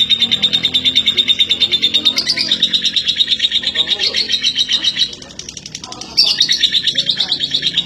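Female lovebird chattering in a rapid, continuous high-pitched trill, the long-duration 'ngekek' song prized in contest lovebirds. It breaks off about five seconds in and resumes about a second later.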